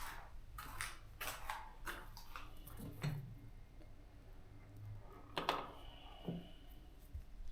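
Irregular light clicks, taps and rustles of hand work on the scooter's parts and panels, with a louder cluster of clicks about two-thirds of the way in, over a faint low hum.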